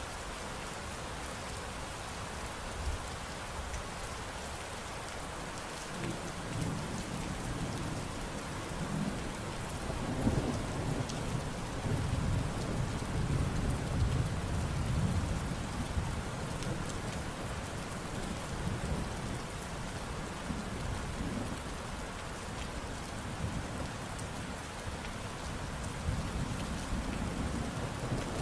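Steady rain pattering, with thunder rumbling low beneath it. The rumble swells about six seconds in, is strongest through the middle, and builds again near the end.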